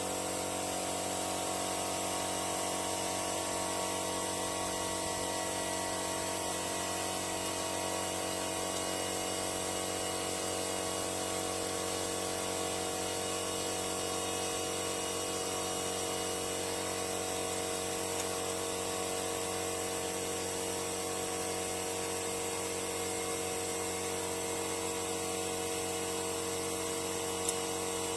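Steady whine of a small electric motor, with several steady tones that never change; a single faint click near the end.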